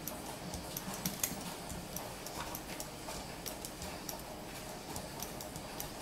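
Faint, irregular small ticks and crackles of rosin flux spitting as a soldering gun melts solder onto an LED strip's pads.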